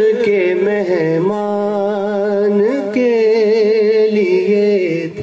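A man singing a naat, an Urdu devotional poem, into a microphone in long, ornamented melodic phrases with a wavering vibrato. A steady low drone runs beneath the voice.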